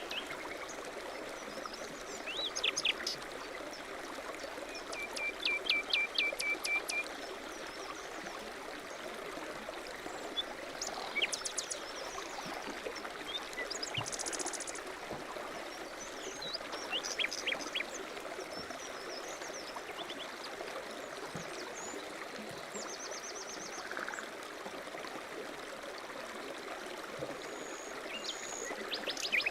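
Steady rush of a flowing stream, with small birds chirping and trilling over it in scattered short phrases, among them a run of quick repeated notes about five to seven seconds in and a fast high trill about halfway through.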